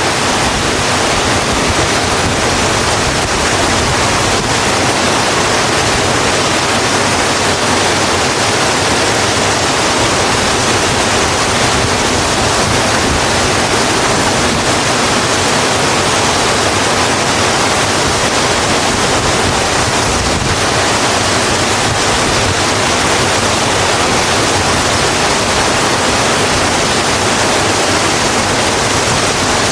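Steady rain falling on a road, a dense, even hiss with no breaks or changes.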